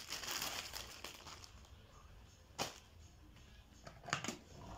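Rustling of a plastic-wrapped vacuum cleaner dust bag, then a sharp click about halfway through and a couple more clicks near the end as the plastic body of a bagged Beko vacuum cleaner is handled to open its dust bag compartment.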